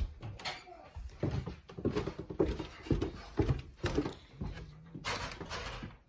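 Footsteps going down wooden stairs: a run of irregular, hollow thumps about twice a second, with a brief rustle near the end.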